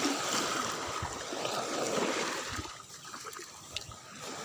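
Water splashing and trickling, an uneven wash of noise that eases off after about two and a half seconds, with a single small knock near the end.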